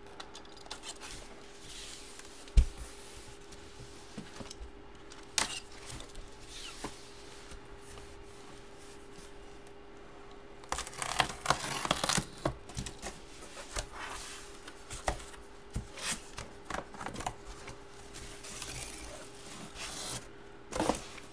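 Cardboard box being opened and handled on a table: scattered taps and knocks, a sharp thump a couple of seconds in, and a stretch of tearing and rustling of cardboard and wrapping about eleven seconds in.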